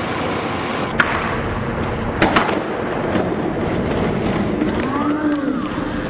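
Skateboard wheels rolling on concrete, with a sharp clack of the board about a second in and two more clacks in quick succession just after two seconds. A short tone that glides up and down comes near the end.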